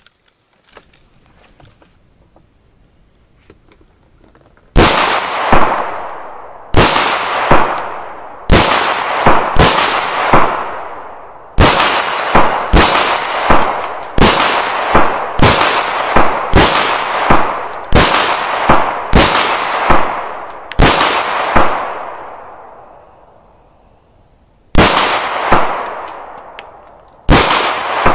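A string of handgun shots begins about five seconds in: more than twenty sharp reports, roughly one a second. Each shot leaves a long ringing tail, and there is a short pause before the last few shots.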